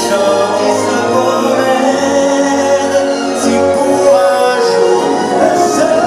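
Loud show soundtrack music with singing voices.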